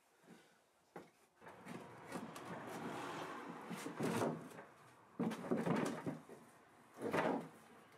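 Heavy cast iron bandsaw frame being rocked and slid into place on a steel-topped dolly, metal scraping and grinding against the plate. A long scrape starts about a second and a half in, followed by shorter scrapes around the fifth and seventh seconds.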